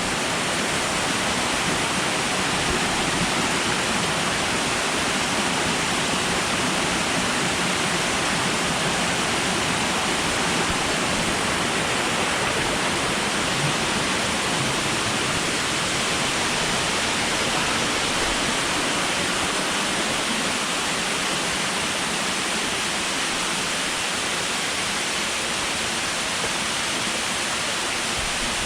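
Steady rushing of falling water, an even unbroken hiss.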